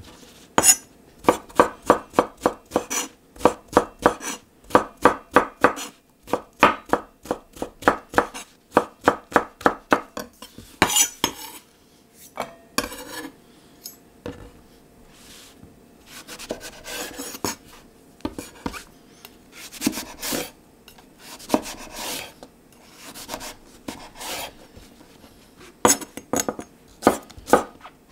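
A chef's knife chops aubergine on a wooden cutting board in quick runs of sharp strikes. In the middle stretch the strikes are sparse, with scattered knocks and scraping, before the fast chopping picks up again near the end.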